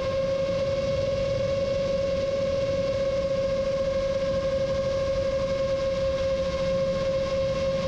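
FPV quadcopter's motors and propellers whining at a steady cruise throttle, one held pitch with overtones over a rushing airflow noise.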